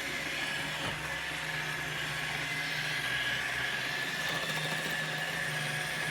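Roomba robot vacuum running: a steady whir with a high whine and a low hum.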